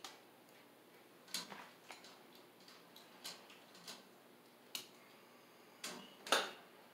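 Irregular clicks and knocks of hands and tools working on a boiler's circulating pump and its wiring, about seven in all, the loudest near the end.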